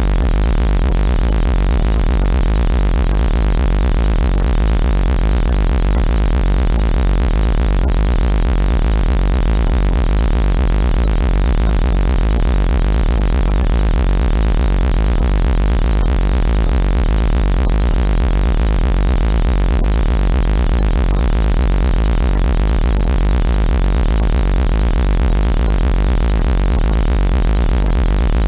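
Synthesized "annoying alien buzzer" sound effect: a loud, steady low electronic buzz under a high tone that warbles rapidly up and down, held without change.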